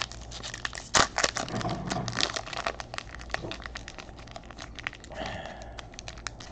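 Plastic wrapper of a trading card pack being torn open and crinkled by hand: dense, irregular crackling, with one louder crackle about a second in.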